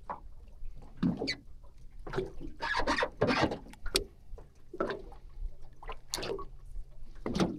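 Water sloshing and splashing against the side of a small aluminium boat in irregular bursts, some louder than others.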